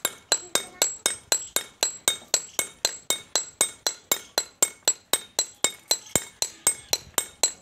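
Hammer striking a small chisel against a stone sil grinding slab: a steady run of ringing metallic clinks, about three to four a second, with one heavier knock about six seconds in. The strikes are pecking fresh grooves into the slab's face to re-roughen its grinding surface.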